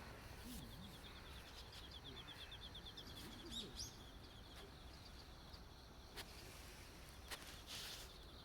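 Faint outdoor ambience with birds chirping: a fast run of repeated high chirps, a few short rising calls about midway, and a couple of soft clicks.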